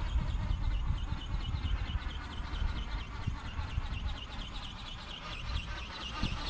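Wind buffeting the microphone in a fluctuating low rumble, the loudest sound. Over it, a faint high whine from a remote-controlled flapping-wing (ornithopter) model's motor dips in pitch about four times a second, in step with its wingbeats, and grows louder near the end as the model flies closer.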